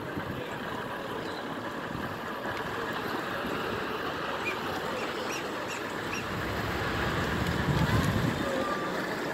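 Steady wash of water and wind around a kayak being paddled, with a few faint chirps around the middle and a louder low rush about eight seconds in.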